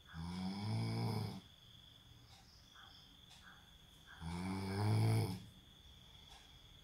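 A sleeping man snoring: two snores about four seconds apart, each lasting over a second.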